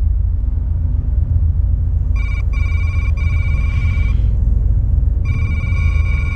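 Electronic telephone ringing for an incoming call: two rings of a steady high-pitched tone, the first starting about two seconds in and lasting about two seconds with brief breaks, the second near the end. A steady low rumble runs underneath.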